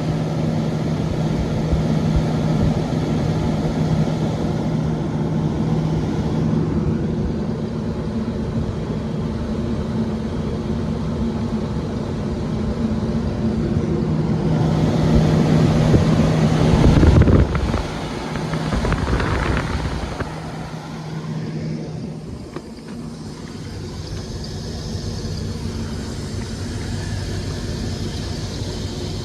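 Belt-driven rooftop kitchen exhaust and make-up air fans running with a steady hum and rushing air. About halfway through, a louder rushing swell builds for a couple of seconds and then stops abruptly.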